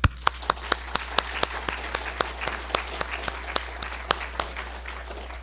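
Audience applauding, with a few sharp close claps standing out over the steady clapping, which thins out near the end.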